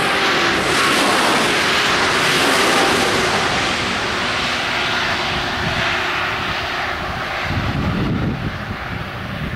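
Passenger train running through a level crossing: a loud, broad rush of wheel and rail noise that eases as the train pulls away. About seven and a half seconds in, a low rumble sets in.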